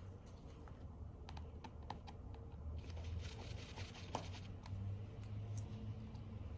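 Faint small clicks and scratches of a tri-wing screwdriver working screws out of an iPhone 14's internal bracket, scattered and irregular, with a short scratchy rasp in the middle, over a low steady hum.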